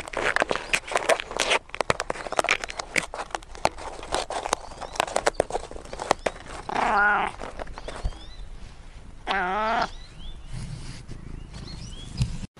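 Bengal cat giving two long yowls with a wavering, warbling pitch, a couple of seconds apart, after several seconds of rapid crackling clicks as it licks and chews at a nylon backpack.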